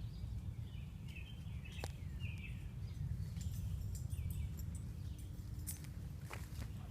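Woodland ambience: a steady low rumble with a few short bird chirps and a couple of sharp clicks.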